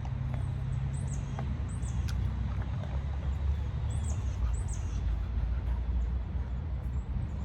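Steady low rumble with songbirds chirping over it: about six short, high, downward-dipping chirps, in pairs about a second in, around four seconds in and near the end.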